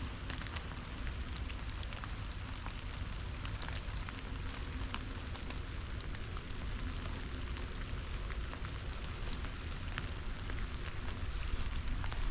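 Light rain falling on forest leaves: a steady hiss dotted with many small drop ticks, over a low rumble.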